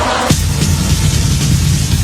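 Music playing: a dense, choir-like passage cuts off about a third of a second in and gives way to bass-heavy electronic music with a steady beat.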